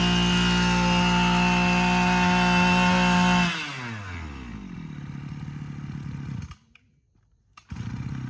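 Maruyama KC26B 26cc two-stroke brush cutter engine held at high revs, then the throttle is let go about three and a half seconds in and the pitch falls away to a rough idle. The sound drops out for about a second near the end, then the idle carries on.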